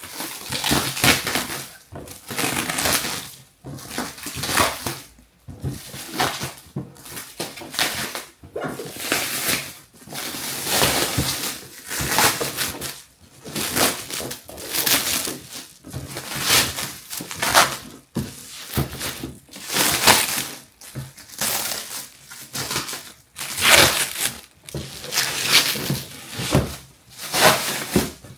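Plastic shrink wrap being torn and crinkled off a figure box, in irregular rustling bursts about a second apart.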